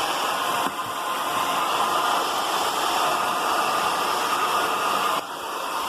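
Hand-held hair dryer running steadily, blowing hot air to shrink a plastic sleeve onto a remote control. Its sound dips briefly about a second in and again near the end.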